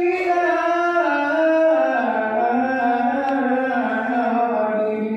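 A man's voice chanting a long, drawn-out line of sung dzikir without drums, holding each note and stepping slowly down in pitch.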